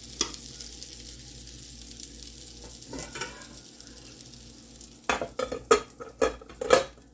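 Sliced potato rounds sizzling in a frying pan, then a quick run of sharp clinks and clatters of a utensil against the pan about five seconds in.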